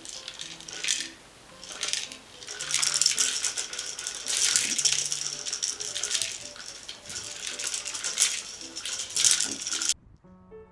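Dry rattling and rustling in uneven bursts, over soft background music; the rattling stops abruptly near the end.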